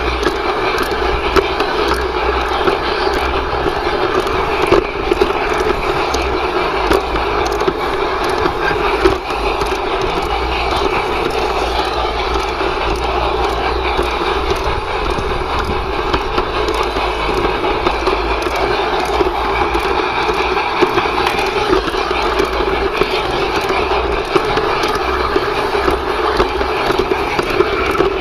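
The wheels of a G-scale garden-railway train roll steadily along the track, a continuous grinding rumble with frequent small irregular clicks. It is heard up close through a camera riding on the flat wagon that the LGB Stainz locomotive pushes.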